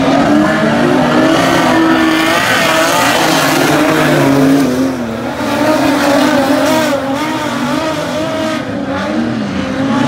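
Several dirt-track speedway sedan race cars' engines revving, their pitch rising and falling as they lap the oval; one car passes close about six seconds in.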